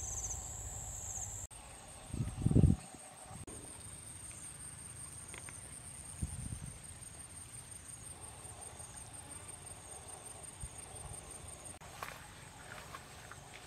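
Outdoor ambience with a faint, steady, high-pitched insect drone, and a brief low rumble about two seconds in.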